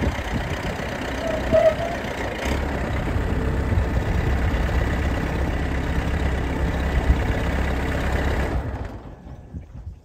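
The AECT 3500 compressed earth block machine running steadily, powering its hydraulics while the press plate is lowered. It shuts down near the end.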